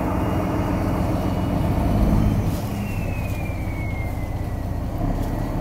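An outrigger pump boat's turbo diesel engine running steadily, sounding good. About two and a half seconds in the engine eases off slightly, and a high thin whine over it slides down in pitch.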